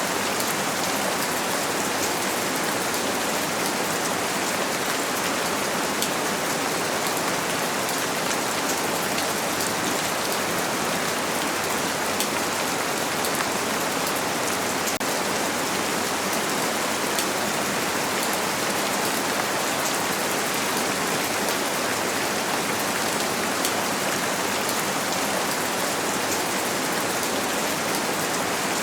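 Steady rain pattering on a window pane: a constant even hiss with fine scattered droplet ticks.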